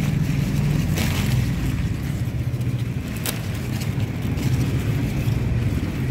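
Steady low motor-like hum, with two sharp clicks about one and three seconds in.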